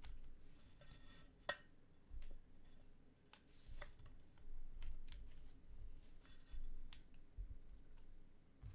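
Scattered small clicks and light scraping from hands working on mechanical keyboard parts during assembly, with one sharper click about one and a half seconds in.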